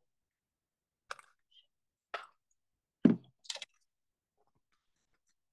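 Four short clicks and taps, about a second apart, with the third the loudest.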